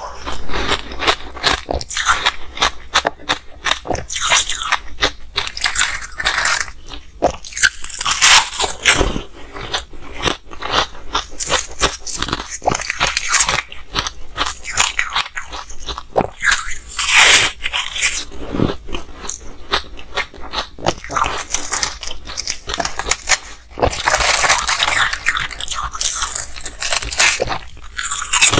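Close-up crunching of frost-covered ice being bitten and chewed, a dense, irregular run of sharp cracks and crackles with no real pauses. In between, frosty chunks of ice are crumbled apart by hand.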